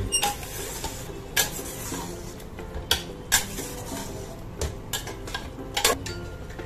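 Steel slotted spoon stirring and scraping minced mutton in a pressure cooker while it is sautéed with ground spices, with about six sharp clanks of the spoon against the pot, irregularly spaced.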